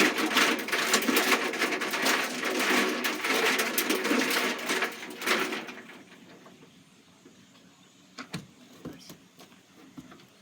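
Washing machine drum spinning with water balloons tumbling inside, a dense rattling noise that stops about six seconds in, followed by a few faint knocks.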